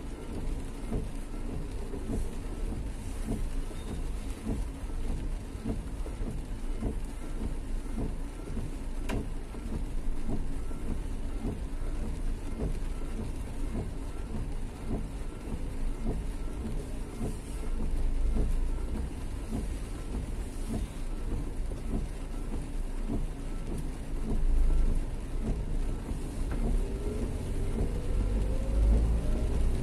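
Steady rain on a city street, with motor traffic going by. A vehicle engine rises in pitch near the end as it speeds up.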